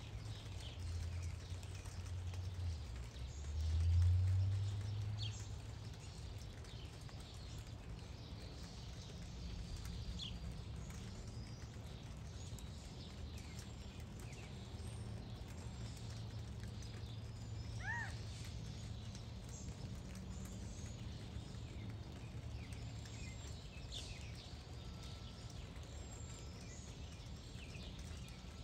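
Quiet outdoor ambience: a low rumble that swells a few seconds in and then settles, with scattered faint high chirps and one short rising-and-falling call about two-thirds of the way through.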